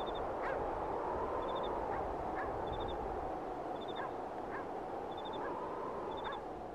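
Outdoor ambience: a steady rushing noise with a short, high three-pulse chirp repeating a little over once a second, and scattered short calls.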